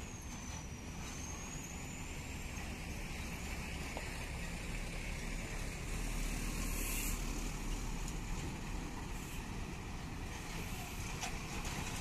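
Loaded diesel lorries driving past on a dirt road, a steady engine and tyre rumble that swells about six seconds in as a truck comes close. A thin high whine dips and rises in the first two seconds, and there is a brief hiss about seven seconds in.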